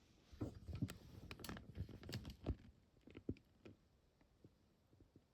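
Handling noise from an action figure and its packaging being handled: a quick run of light clicks and knocks that thins out to a few scattered taps about halfway through.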